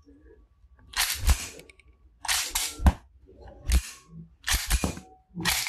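Slide of an 8 mm Walther P99 blank pistol being racked by hand about five times, each pull and release a sharp metallic clack, chambering and ejecting unfired blank cartridges. The slide is very strong and stiff.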